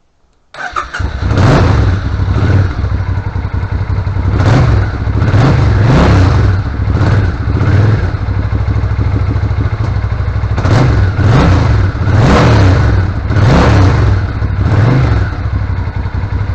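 Suzuki Intruder VS800's V-twin engine firing up on choke about half a second in and running, revved in repeated blips. It is a cold start after its no-crank, no-start fault has been traced and fixed.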